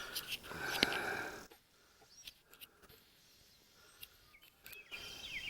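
Faint outdoor ambience with a few short, high bird chirps. There are some clicks and rustles in the first second or so, and the background drops almost to silence through the middle.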